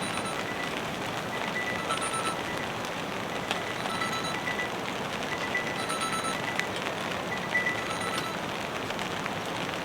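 Steady rain falling, with an iPhone's short high warning beeps repeating about every two seconds: its alert for moisture in the charging port.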